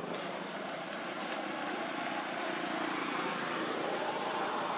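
A steady engine drone that swells a little near the end.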